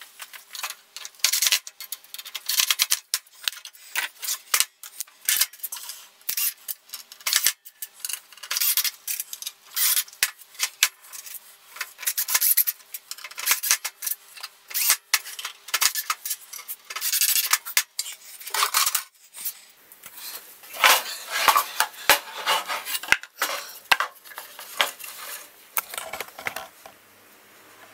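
Workshop handling noise: irregular clicks, scrapes and clatter of metal and wooden parts being moved, fitted and fastened by hand.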